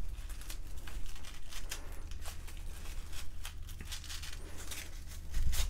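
Thin paper wrapping being unwrapped by hand, crinkling and tearing in many small crackles, with a louder rustle near the end.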